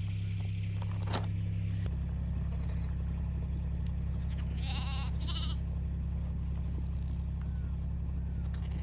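A newborn lamb bleats once, a wavering call of about a second, roughly halfway through, over a steady low rumble.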